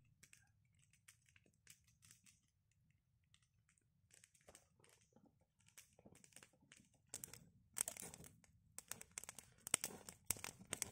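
Wood campfire crackling with irregular small pops, faint and sparse at first and louder and more frequent in the last few seconds.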